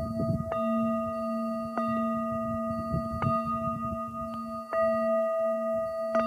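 Metal singing bowl struck five times, about every second and a half, each strike ringing on in a steady low hum with several higher overtones. A low wind rumble sits underneath.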